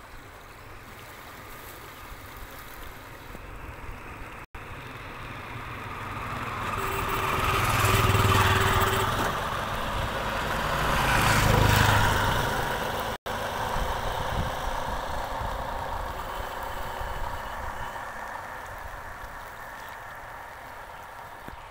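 A motor engine passing close by, over steady rushing water. The engine swells to its loudest about eight seconds in and again around eleven to twelve seconds in, then fades away. The sound cuts out briefly twice, once before the pass and once just after it.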